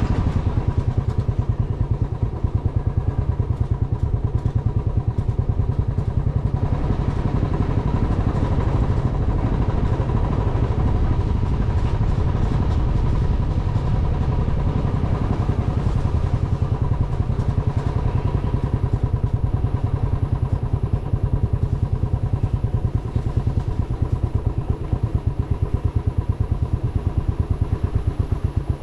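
Engine of a moving vehicle running steadily with a fast, even throb, a faint steady whine over it.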